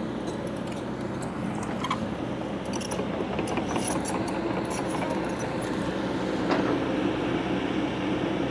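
Heavy equipment's diesel engine running steadily, with light metallic clinking and rattling over it. The clinks come mostly in the middle, and the engine sound swells a little near the end.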